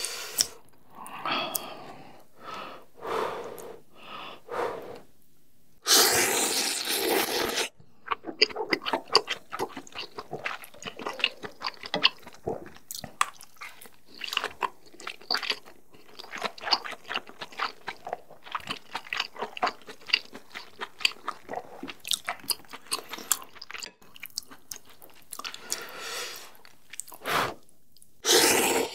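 A person eating noodles into a close microphone: short slurps, then one long loud slurp about six seconds in. Steady wet chewing with many small mouth clicks follows, and more slurps come near the end.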